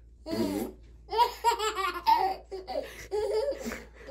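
A baby laughing in short fits, with a run of quick laugh pulses in the middle. A man's deep voice sounds briefly near the start.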